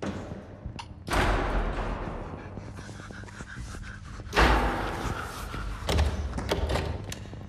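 Heavy slams echoing in a large, bare room: one about a second in with a long ringing tail, a louder one about four and a half seconds in, then a few smaller knocks.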